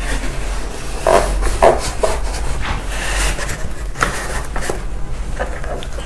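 Fabric cover being pulled and stretched over a child car seat's polystyrene-foam headrest: irregular rustling and rubbing with a few soft knocks.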